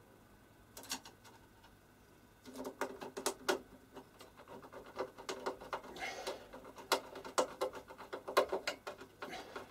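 Small metallic clicks and rattles of a screwdriver and screws working against the steel chassis rails of an HP 8568B spectrum analyser. A couple of clicks come about a second in, then a dense, irregular run of sharp clicks from about two and a half seconds in.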